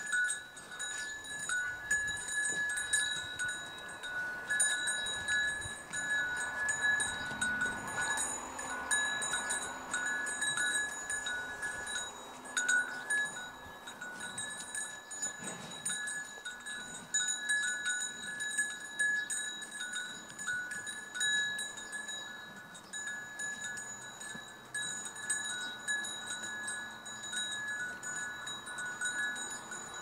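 Metal bells on grazing livestock ringing on and on, several clear tones holding with brief gaps.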